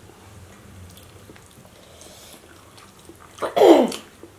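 Faint eating-by-hand sounds. About three and a half seconds in comes a short, loud vocal exclamation that slides steeply down in pitch.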